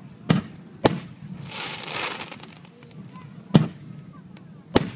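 Aerial firework shells bursting overhead: four sharp bangs, two close together near the start and two more later, with a spell of hissing crackle in between, about two seconds in.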